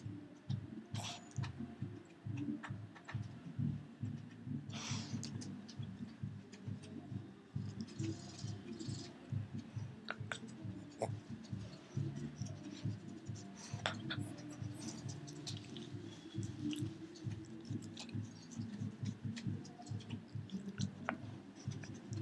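Pekingese puppy gnawing on a rawhide treat, with scattered teeth clicks and crunches, over background music.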